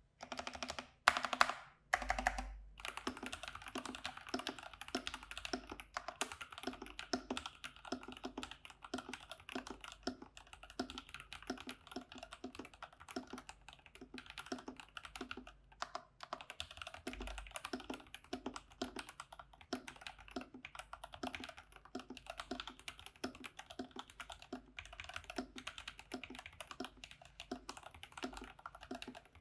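Typing on an IQUNIX OG80 DarkSide mechanical keyboard fitted with stock TTC Gold Pink linear switches: a quick, uneven run of keystroke clacks. A few louder strokes come about a second in, before the steady typing.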